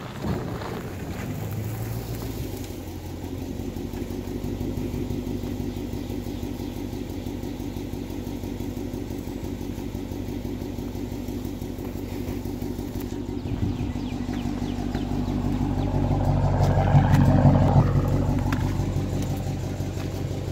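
2011 Dodge Challenger R/T's 5.7-litre Hemi V8, through a Borla ATAK exhaust, idling steadily after pulling up. A single knock comes about thirteen seconds in, and the idle swells louder around sixteen to eighteen seconds in before settling.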